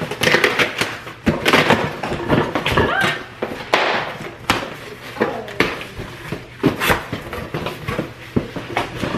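A large cardboard shipping box being handled and opened: a busy run of knocks, thuds and rustles.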